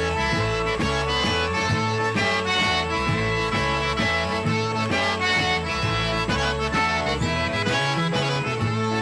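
Lively instrumental background music with a steady, bouncing bass line under a busy lead melody.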